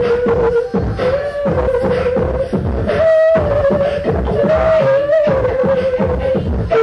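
Live beatboxing into microphones: a steady beat of mouth-made kick and snare sounds under one long held note that wavers and steps up and down in pitch.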